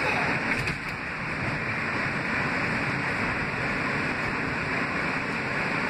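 Kawasaki R160B subway train with Siemens propulsion running at speed, heard from inside the car: a steady rush of wheels on rail and moving air.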